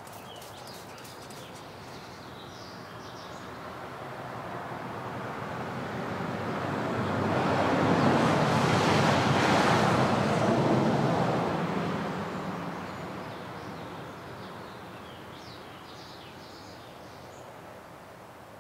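A vehicle passing by: a broad rushing noise of tyres and engine swells over several seconds, is loudest about 8 to 10 seconds in, then fades away. A few faint high chirps sit behind it near the start and the end.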